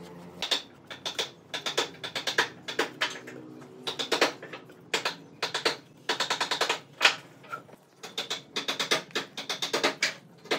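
A flat stick scraping and tapping glue into narrow slots cut in a wooden slab, in quick bunches of sharp clicks with short pauses between.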